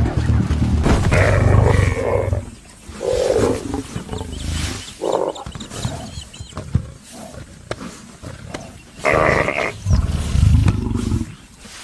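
Lioness growling and roaring in several loud, rough bursts with quieter gaps between, the strongest about a second in and again about nine seconds in.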